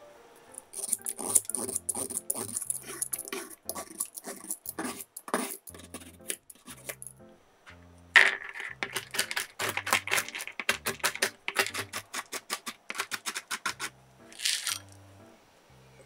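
A carrot worked by hand on a cutting board gives quick scraping strokes with a high rasp. About eight seconds in, walnuts clatter out onto the board, followed by a run of rapid knocks. Soft background music plays throughout.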